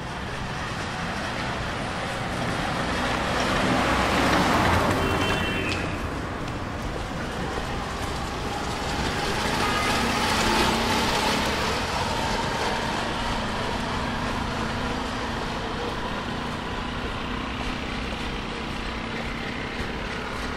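Busy street traffic with engines running, and vehicles passing close by in two louder swells about four and ten seconds in.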